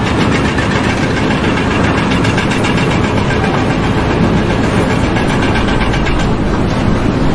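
A large engine running steadily and loudly.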